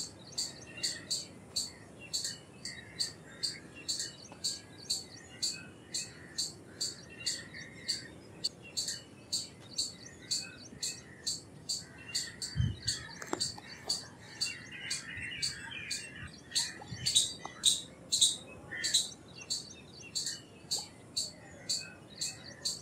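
Indian palm squirrel calling: a shrill chirp repeated steadily about two to three times a second, a few calls louder about two-thirds of the way through. Fainter bird twittering sits behind it, with a single low thump about twelve and a half seconds in.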